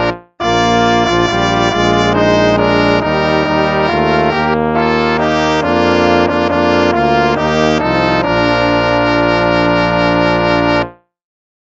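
Instrumental hymn music played on brass, with a short dropout just after it begins; the music stops about eleven seconds in, leaving a second of silence.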